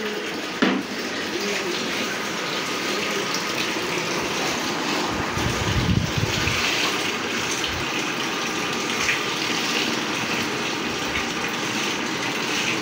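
Steady gush of running liquid, with a sharp knock about half a second in.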